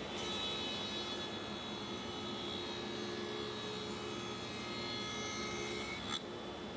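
Table saw with a 7/16-inch dado stack cutting a groove along a solid pine rail: a steady cutting noise with a faint whine over the hum of the running saw. The cut stops abruptly about six seconds in.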